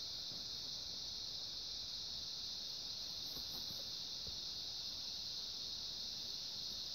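A steady high-pitched hiss.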